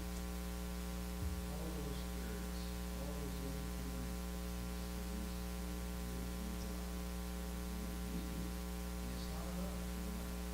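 Steady electrical mains hum with a stack of overtones, with faint off-mic voices now and then and a soft low thump about a second in.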